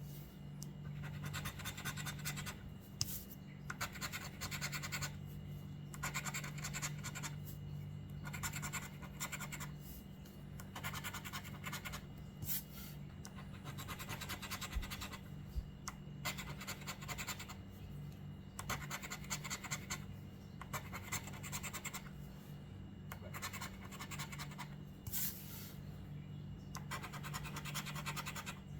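Lottery scratch-off ticket being scratched off in repeated short strokes: about a dozen rasping bursts with brief pauses between them, uncovering the numbers on the ticket.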